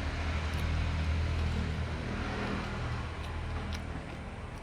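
Steady low rumble of a motor vehicle's engine, slowly fading toward the end.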